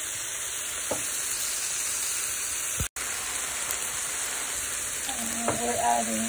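Kelp noodles and broccoli frying in olive oil in a pan, a steady sizzle. The sound drops out for an instant about three seconds in.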